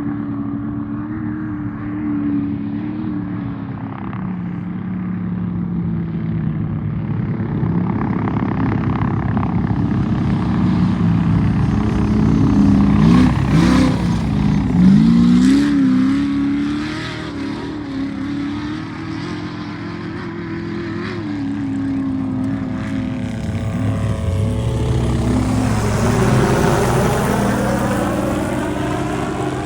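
Off-road race truck engine running hard with repeated revving, its pitch swinging up and down, loudest in the middle. Near the end a vehicle sweeps past close by, its pitch dropping.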